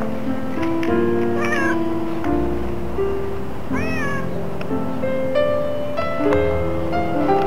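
Background music with steady held notes, over which a domestic cat meows twice: two short meows about a second and a half and four seconds in.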